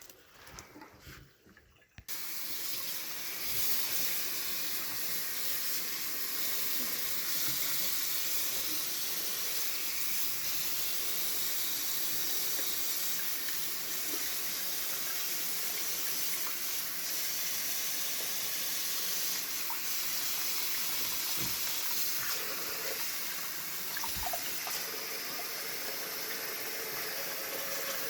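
Water running steadily from a tap. It comes on suddenly about two seconds in, after a couple of seconds of faint handling sounds.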